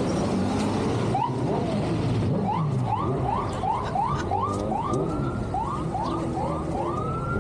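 Emergency vehicle siren in a fast yelp, short rising wails repeating about three times a second, starting about a second in, over a steady low background rumble.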